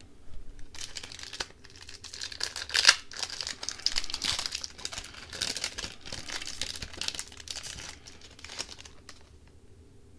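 Wrapper of a Tim Hortons Upper Deck hockey card pack crinkling and tearing as it is opened, starting about a second in and dying away near the end.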